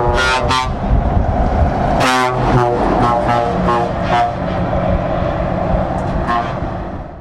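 Scania truck driving past, sounding its air horns in a series of blasts: two short toots at the start, a longer, loudest blast about two seconds in, then several more short toots, over the engine and tyre rumble.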